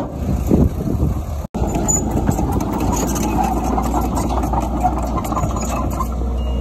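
Diesel engine of heavy earthmoving machinery running steadily with a low rumble, broken by a momentary cut to silence about one and a half seconds in.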